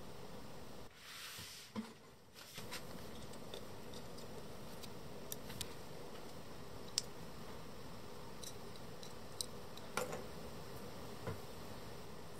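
Small plastic miniature toy pieces being handled and set down: scattered faint clicks and taps over a steady hiss.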